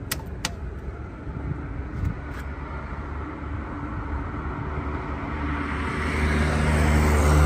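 Two sharp clicks of the elevator call button being pressed, then a road vehicle's engine rumble building up, loudest near the end.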